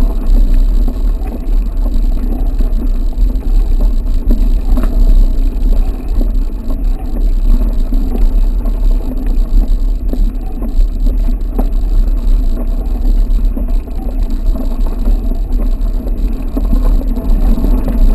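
Wind buffeting an action camera's microphone as a mountain bike rides along a trail, a loud, steady rumble with tyre noise and a few small knocks from the bike.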